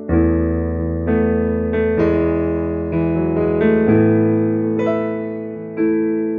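Nord Stage 3 stage keyboard playing a piano sound: a slow run of sustained chords over bass notes, a new chord struck about every second.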